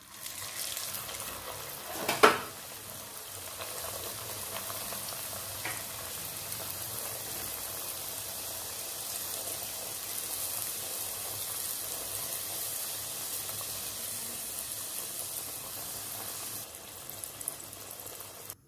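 A dal puri sizzling as it fries in hot oil in a pan: a steady crackling hiss, with one sharp loud knock about two seconds in.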